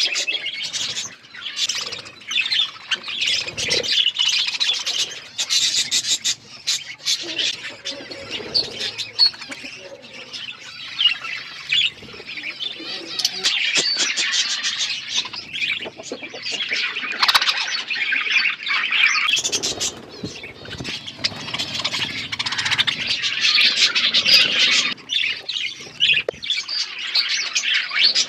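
A flock of budgerigars chattering, a dense, continuous warble of chirps and squawks, with occasional wing flutters.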